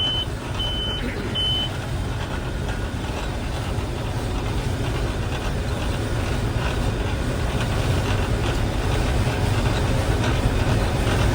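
Combine harvester running steadily while cutting wheat, a low even machine rumble. Near the start its monitor beeper gives three short high beeps, tripped by a monitor sensor that is going bad.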